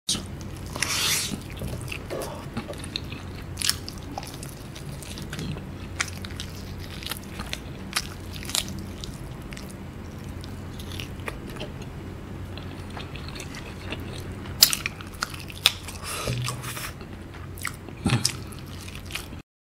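Close-miked eating: a person biting into and chewing sauce-coated fried chicken, with many short, irregular mouth clicks and smacks.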